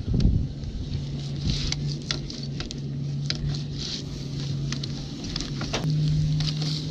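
Fillet knife cutting and scraping through a fish fillet on a plastic cutting board: a run of small clicks, taps and scrapes, with a thump at the start and a low steady hum underneath.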